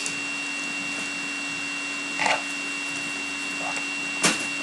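Steady electrical hum with a high whine running under the scene. A brief rustle comes about two seconds in, typical of trading cards being handled, and a single sharp tap comes near the end.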